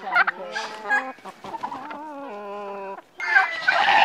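Domestic fowl calling in a poultry pen: a few drawn-out, pitched calls that hold or step down in pitch. About three seconds in the sound breaks off and gives way to a louder, noisier farmyard din.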